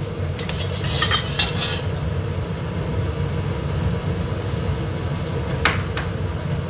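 Light metal clinks of kitchen utensils and dishes, a quick cluster about a second in and a single clink near the end, over a steady low hum.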